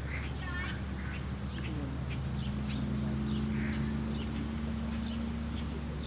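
Ducks quacking now and then, with short scattered calls over a steady low hum.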